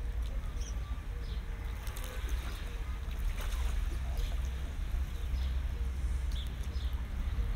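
Low, uneven rumble of wind on the microphone by open water, with faint short high chirps now and then.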